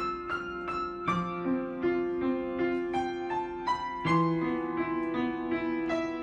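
Background piano music: a melody of struck notes over held lower notes that change about every three seconds.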